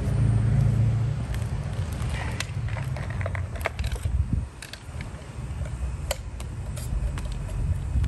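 Tools and a plastic package being picked up and handled: scattered clicks and light rattles over a steady low rumble.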